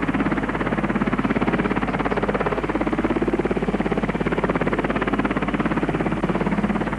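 Twin-turbine Westland Wessex helicopter hovering low, its rotor beating in a rapid, even chop.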